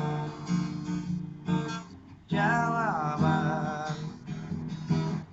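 Strummed acoustic guitar accompanying a sung Indonesian pop ballad. A dip comes shortly before halfway, then a sung line enters that falls in pitch.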